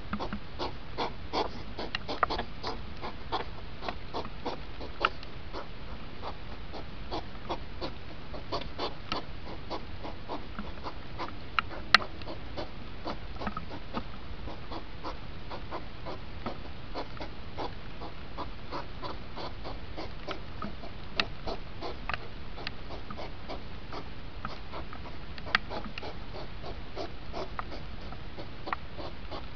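Hedgehogs huffing and snorting in courtship during the rut, sped up so the huffs come as a rapid run of short puffs and clicks, densest in the first ten seconds, with a few sharper clicks, over a steady hiss.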